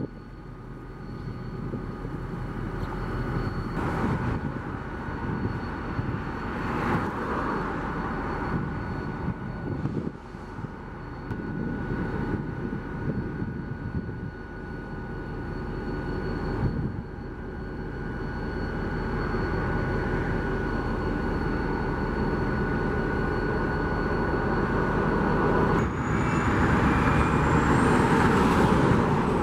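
EMD GP40-2 diesel locomotive's 16-cylinder turbocharged two-stroke engine running steadily, with a steady whine over the rumble. Near the end, passing road traffic, a semi-truck and a car, rises over it and becomes the loudest sound.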